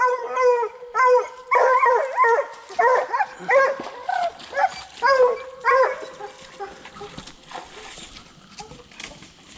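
Coonhound barking at the tree in short, steady barks, about two a second, loud for about six seconds and then fainter and more scattered: the hound is treeing a raccoon.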